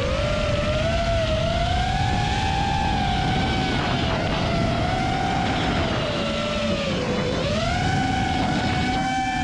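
FPV drone's motors and propellers whining, the pitch rising and falling with throttle, dipping just at the start and again about seven seconds in before climbing back up. A steady rushing noise runs underneath.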